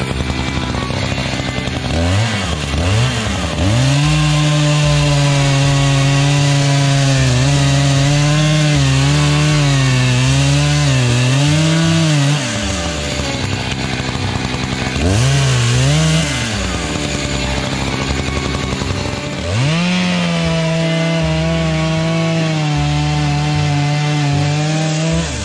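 Two-stroke chainsaw cutting firewood: it revs up to full throttle, its pitch sagging and wavering as the chain bites into the wood. It drops off after the middle, blips once, then revs up and cuts again steadily near the end.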